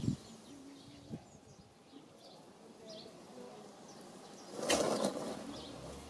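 Farmyard ambience: scattered short chirps of small birds, a short low animal call about half a second in, and a brief loud rustling burst a little before the end, the loudest sound here.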